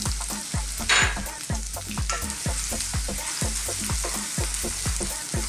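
Chopped onion, garlic, ginger and chilli sizzling in hot oil in a wok, stirred with a wooden spoon, with a brighter burst of sizzle about a second in. A steady low beat about three times a second runs underneath.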